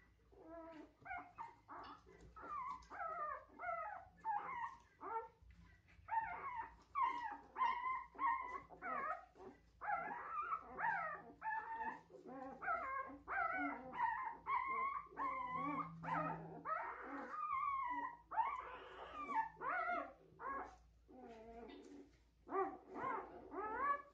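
Newborn German Shepherd puppies squealing and whimpering nonstop as they jostle to nurse, many short high cries that rise and fall and overlap one another.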